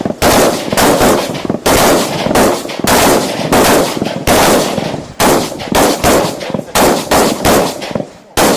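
Tavor bullpup assault rifles firing rapid, evenly paced shots, about three a second, each with a short echo. There is a brief break near the end.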